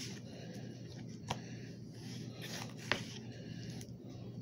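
Kitchen knife chopping diced tomato on a plate: a few sharp taps of the blade against the plate, the loudest about three seconds in.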